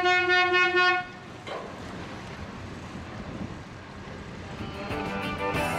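A horn sounds one steady toot about a second long at the start, then lower even background noise, with background music coming in near the end.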